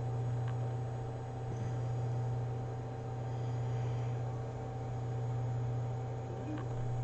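Steady low electrical hum over a hiss, slowly swelling and easing in loudness, with a few faint clicks.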